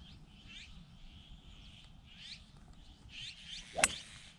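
Golf club striking a ball on a full swing: one sharp crack about four seconds in, the loudest sound. Birds chirp throughout.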